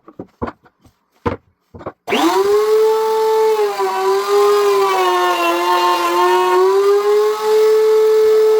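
A few clicks and knocks, then a wood router starts about two seconds in and spins up to a steady high-speed whine. Its pitch sags a little in the middle as the bit cuts a groove into mango wood, then rises again near the end.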